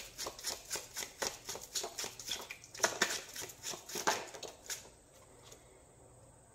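Tarot deck being hand-shuffled: a quick run of papery card slaps, about five a second, with two louder snaps about three and four seconds in. The shuffling stops about five seconds in.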